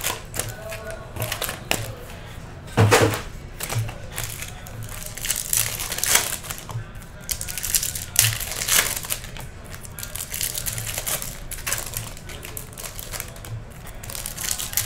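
Foil wrappers of Topps Chrome baseball card packs rustling and crinkling as the packs are taken from the box and handled, a quick run of small crackles with a louder knock about three seconds in.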